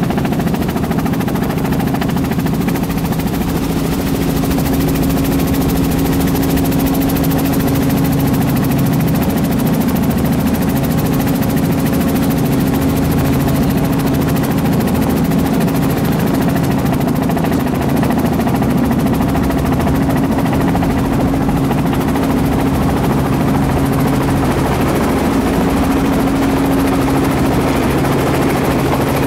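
Light helicopter's engine and rotor running steadily, heard from inside the cockpit, with an even low hum through the approach to the landing pad and touchdown.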